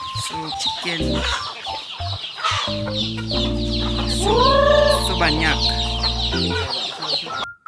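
A flock of chickens clucking over background music, with a rooster crowing about four seconds in. The sound cuts off abruptly near the end.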